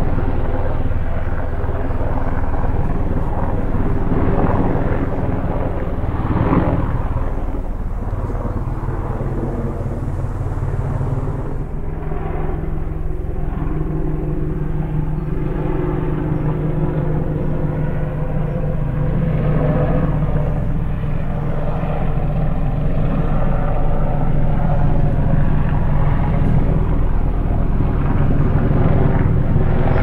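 Steady propeller hum of an aircraft in flight, several tones at once, changing to a stronger, lower hum about twelve seconds in.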